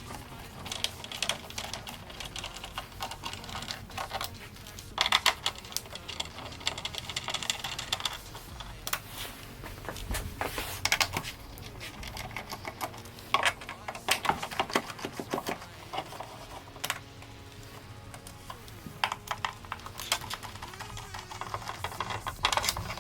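Irregular clicks, taps and light knocks of hands and a tool working on a coffee machine's plastic housing and screws, coming in clusters with short gaps between them.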